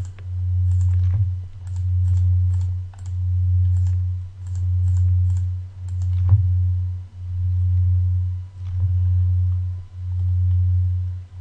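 Computer mouse clicking repeatedly, many single clicks and some quick pairs, over a loud low hum that swells and fades about every second and a half.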